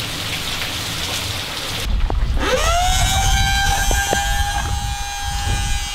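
Rain falling, then about two seconds in a small electric utility pump starts up to pump out floodwater: its motor whine rises quickly and holds at a steady pitch. A few light clicks and a low rumble of wind on the microphone sit under it.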